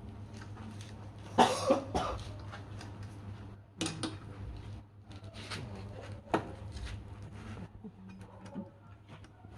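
A person coughing once, about a second and a half in, with scattered light clicks and knocks over a steady low hum.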